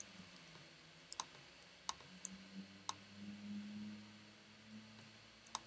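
Computer mouse clicking, a handful of short, sharp clicks spread over a few seconds, with a faint low hum underneath.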